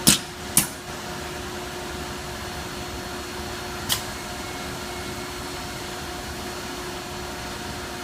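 Automated pick-and-place, welding and unload machine cell running with a steady hum. Three short, sharp mechanical sounds cut through it: two in quick succession at the start and one about four seconds in.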